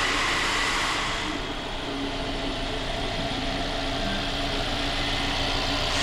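Mercedes engine idling steadily just after fresh injectors were fitted, running after a hard start. A higher hiss over it fades out about a second in.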